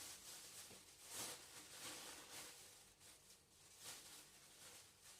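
Near silence, with faint rustling and handling noises coming and going every second or so.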